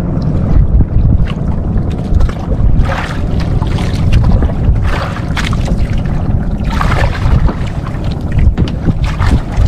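Wind buffeting the microphone aboard a small outrigger fishing boat at sea: an uneven, heavy low rumble, with a few short hissing swishes about three, five and seven seconds in.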